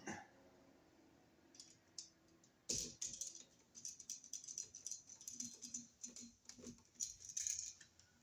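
Scattered small clicks and scrapes of a screwdriver and copper wire working on a wall receptacle's brass terminal screw as the black wire is tightened under it. The sharpest click comes a little under three seconds in.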